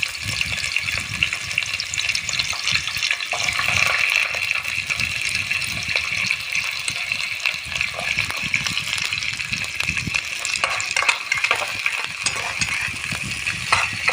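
Chopped onions sizzling steadily in hot oil in a frying pan. Toward the end, a utensil stirring them clicks and scrapes against the pan.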